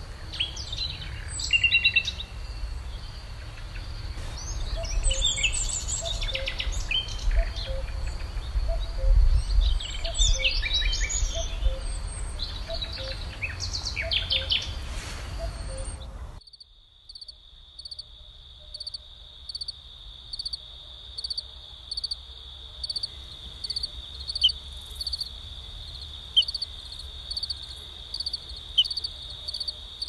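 Several songbirds singing and calling over a low rumble. About sixteen seconds in it cuts abruptly to a night chorus of crickets: a steady high trill with a regular pulsed chirp about one and a half times a second.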